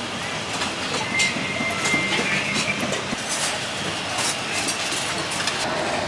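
Steady outdoor street noise with scattered clinks and knocks.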